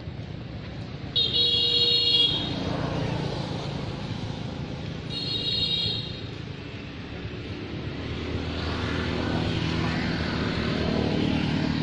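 Two short horn toots from a passing vehicle, the first about a second in and the louder, the second about four seconds later, over steady traffic rumble. In the second half a vehicle engine grows louder as it approaches.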